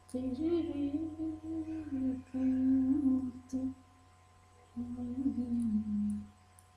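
A woman humming a tune in three long phrases with short pauses between them, over a steady low electrical hum.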